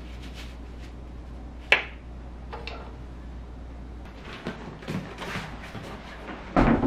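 Gear being handled indoors: a sharp click, a lighter one a second later, then rustling and knocks that grow louder near the end as a pannier bag is handled against a bicycle's rear rack.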